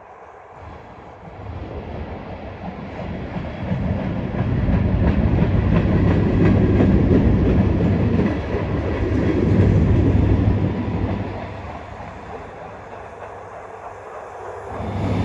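Union Pacific maintenance-of-way train rolling past: steel wheels on the rails with a low rumble. It builds from about a second in and is loudest through the middle. It eases off briefly near the end, then builds again with a steady low hum.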